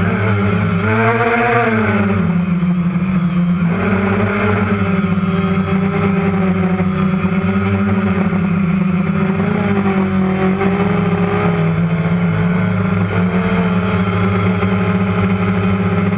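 DJI Phantom quadcopter's propellers and motors humming steadily. The pitch rises about a second in, drops, and climbs again near four seconds, then wavers slightly as the drone is flown.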